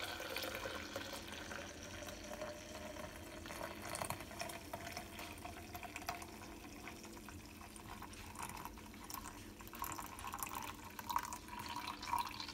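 Hot coffee poured in a steady stream into a plastic Ninja blender cup, filling it up toward the max-liquid line.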